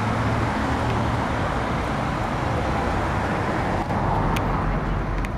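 Road traffic on a city street: a steady rush of car and engine noise as vehicles, a police car among them, drive up the road. There is a brief break and a couple of sharp clicks about four seconds in.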